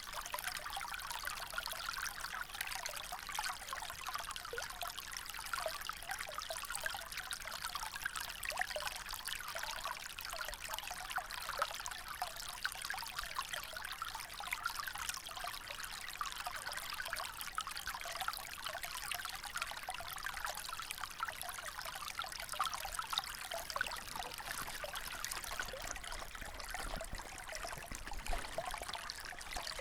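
Small stream of water trickling steadily, with a dense patter of tiny splashes and no deep rush.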